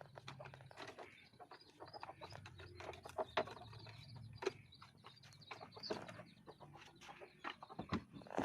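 Faint scattered clicks and knocks with bird calls in the background.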